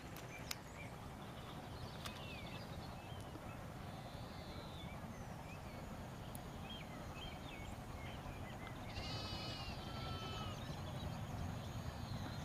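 Sheep bleating in a hillside field, with one clear bleat about three-quarters of the way through, over scattered small-bird chirps and a low wind rumble. The low rumble builds near the end as the steam train approaches.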